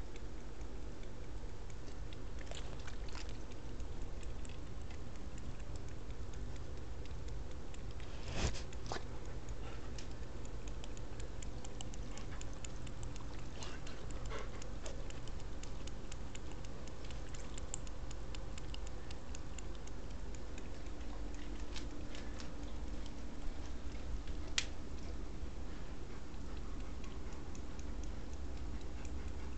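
A kitten lapping water from a stainless steel bowl: a quick run of soft wet ticks, with a louder click about eight seconds in. A steady low hum lies underneath.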